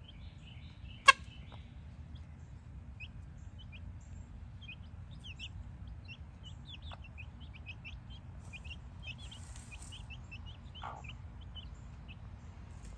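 Brahma chicks peeping in many short, high chirps as they feed, with a low cluck from the mother hen near the end. A single sharp click about a second in is the loudest sound.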